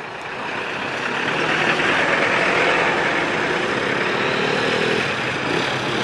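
Road traffic driving slowly across a railway level crossing at close range. A pickup and a car pass by, their engine and tyre noise building over the first two seconds and then holding steady, with a low engine drone in the middle.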